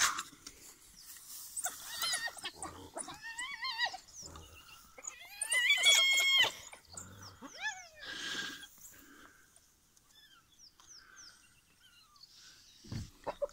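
African wild dogs and spotted hyenas squabbling over a kill: a busy run of high-pitched squeals, whines and twittering calls. The calls thin out and die down over the last few seconds.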